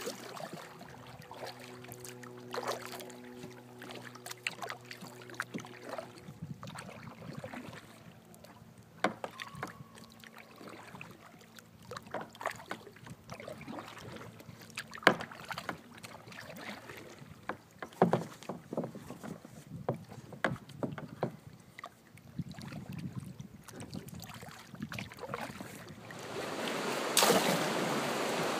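Kayak paddling: double-bladed paddle strokes splashing in the river, with irregular knocks of the paddle against the boat. A couple of seconds before the end, the steady rush of a river rapid swells up loud and takes over.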